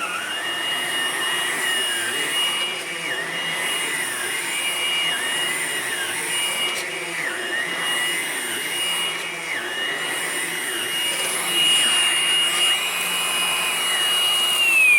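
Hoover Blade Plus cordless stick vacuum running on carpet: a steady high motor whine, with a second tone whose pitch dips briefly every second or so. At the very end the whine falls away as the motor winds down.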